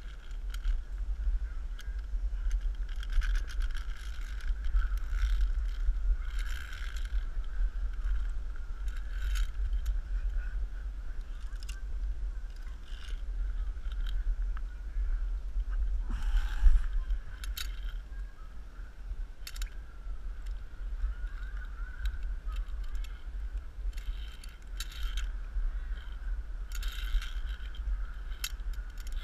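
Handling and rubbing noise on a body-worn action camera as a climber moves along a high ropes course, with irregular metallic clinks of safety carabiners and gear against the steel cable. One louder knock about halfway through.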